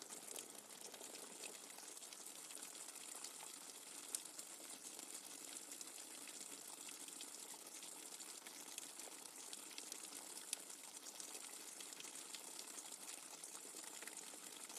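Steady rain, a faint even hiss dotted with the ticks of single drops, two of them sharper: about four seconds in and again near ten seconds.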